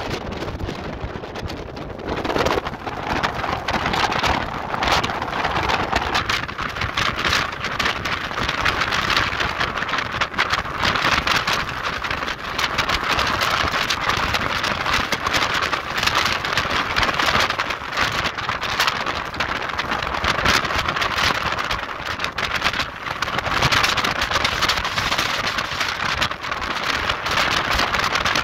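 Storm-force wind gusting to about 56 knots, buffeting the microphone: a continuous rushing noise thick with crackling buffets, a little quieter for the first two seconds.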